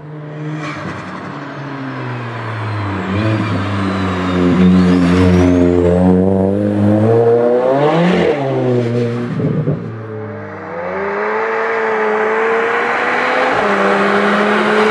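A car engine under hard acceleration, its note climbing steadily to a peak about eight seconds in and then dropping away as the car passes. A second run follows, the engine note rising again near the end.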